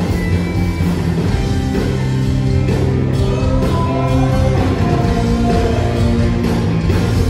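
Live rock band playing loud through the stage PA: electric guitars, bass guitar and drums, with held guitar notes over a steady beat.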